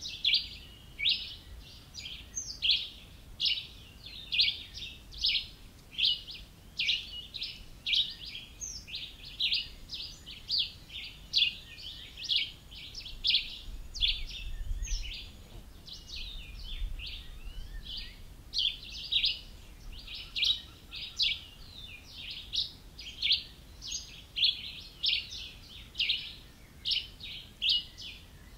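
High, chirping calls repeated about twice a second without pause, several callers overlapping in an evening chorus.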